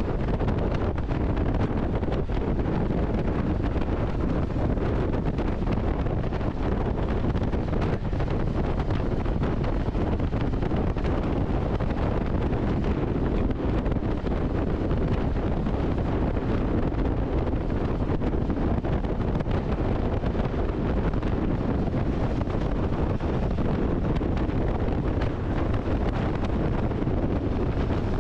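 Wind rushing over the microphone of a moving vehicle, with its steady road and engine noise underneath.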